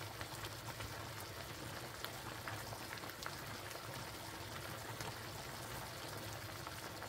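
Waxy corn kernels simmering in buttery water in a pan on a gas stove: steady bubbling with many small pops. A low, steady hum runs underneath.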